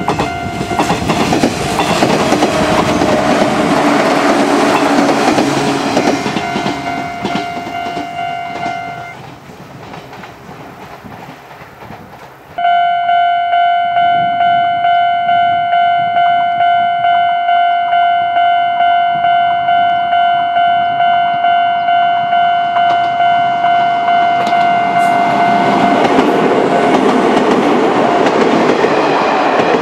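Japanese level-crossing alarm ringing in rapid repeated dings over the noise of a train passing through the crossing. The alarm stops about a third of the way in, leaving the fading train, then starts again suddenly, pulsing about twice a second, as another train comes up and passes near the end.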